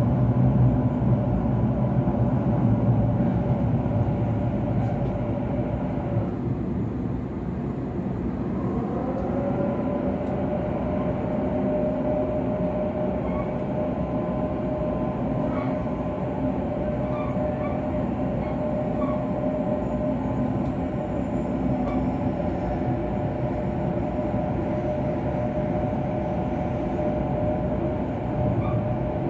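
Sydney Trains Waratah A set running, heard inside the carriage: the whine of its Hitachi IGBT-VVVF traction inverter and motors over a steady rumble of wheels on rail. The whine drops out about six seconds in, then slides up in pitch about two seconds later and holds steady again.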